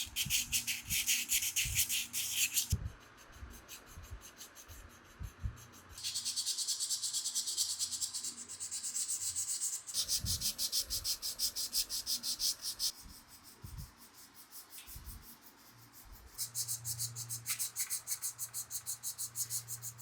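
Hand scrubbing or sanding of a metal part with an abrasive: quick back-and-forth strokes, several a second, in runs of a few seconds with short pauses between them, and a few light knocks as the part is handled.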